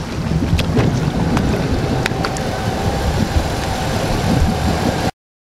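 Inboard ski boat's Marine Power 5.7-litre fuel-injected V8 running at low speed, with water and wind noise on the microphone and a few sharp clicks; the sound cuts off abruptly near the end.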